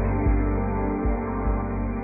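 Music with a slow low beat, slowly fading.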